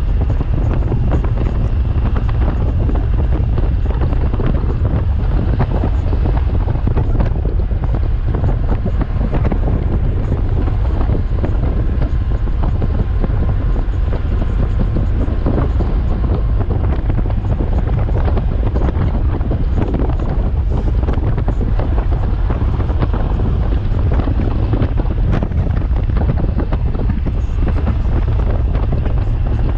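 Wind rushing over the microphone of a camera on a Honda Gold Wing motorcycle moving at road speed: a loud, steady low rumble.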